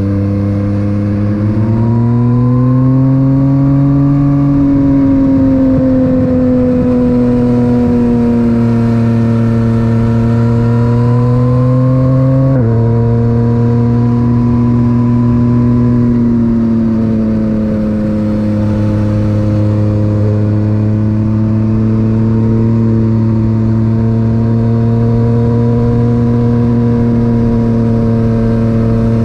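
Yamaha MT-09's inline three-cylinder engine through an Akrapovic titanium exhaust, heard while riding. It rises in pitch under acceleration, eases off, and climbs again. About twelve seconds in the pitch drops suddenly as it shifts up a gear, then it runs at a fairly steady pitch.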